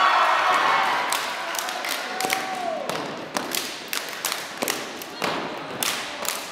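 Crowd cheering that dies away, then a run of sharp claps and stomps from a dance group stepping out a rhythm on a gym floor, roughly two a second with some quick doubles. A short falling voice call comes a little over two seconds in.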